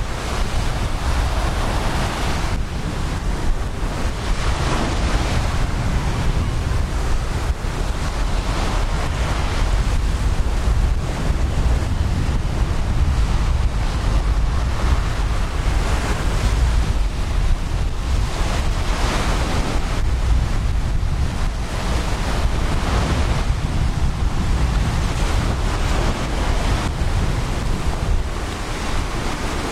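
Ocean surf breaking and washing up the beach in repeated swells every few seconds, with a steady low rumble of wind buffeting the microphone.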